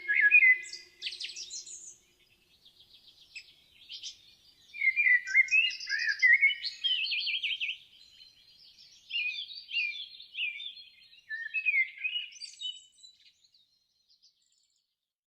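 Songbird singing: quick, varied chirping and warbling phrases in three bouts, falling silent near the end. A low steady tone fades out in the first second.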